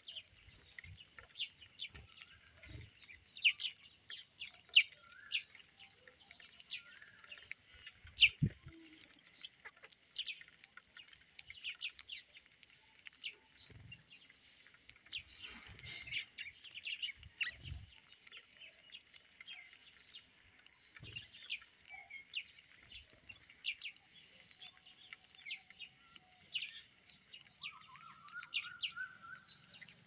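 House sparrows chirping busily: quick, short, repeated chirps, several a second, with occasional soft low bumps.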